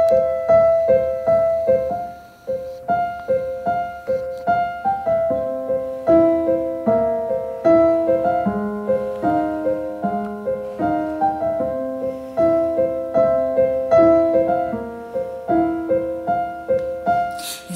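Casio digital piano playing a solo instrumental introduction: a repeated two-note figure in the middle register, joined about five seconds in by a lower left-hand line.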